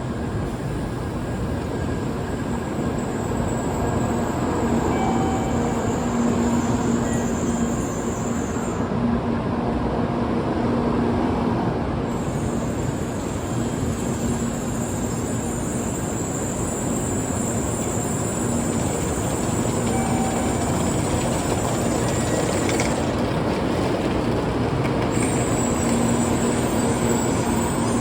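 Tokaido Shinkansen N700A train rolling slowly into a station platform, with a steady rumble throughout. A high-pitched whine drops out briefly about a third of the way in and again near the end, and a lower hum comes and goes.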